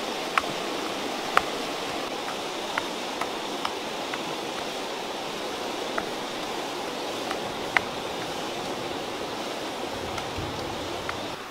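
River snails boiling hard in water in a clay pot over a wood fire: steady bubbling and hissing, with scattered sharp pops about once a second.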